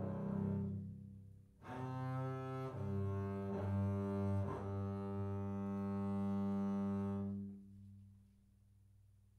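Solo double bass, bowed. A note dies away, and after a short gap a new low phrase of a few bow strokes settles into one long held note that fades out about seven and a half seconds in.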